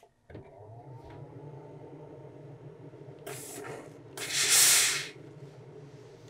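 Steam iron pressing a fold in fabric: a short hiss of steam about three seconds in, then a louder, longer hiss about a second later. Under it is a steady low motor hum that starts just after the beginning.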